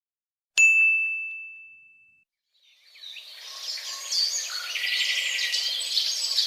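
A single bright ding about half a second in, one clear tone ringing out and fading over a second and a half. From about three seconds in, birds chirping fade in and keep up a busy twitter.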